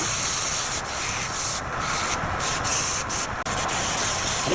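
Steady rasping of wood being worked on a woodturning lathe, the upper hiss briefly dropping out a few times.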